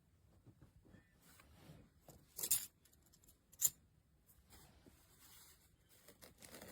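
Small plastic magnetic cube blocks being handled, with light scattered clicks and rustling and two sharper clicks about two and a half and three and a half seconds in.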